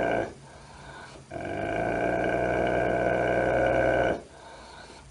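A large mastiff-type dog growling at its own reflection in a mirror: long, steady, deep growls with short breaths between them. One growl ends just after the start, and another lasts about three seconds.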